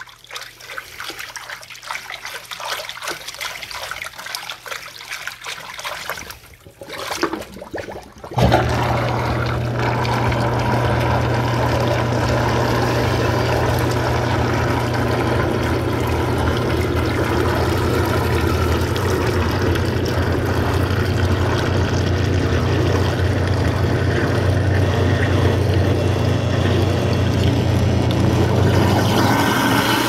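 A hand swishing and splashing through a sink full of water for the first eight seconds or so; then an InSinkErator garbage disposal comes on with a loud, steady motor hum and runs, with water rushing and swirling down the drain through it.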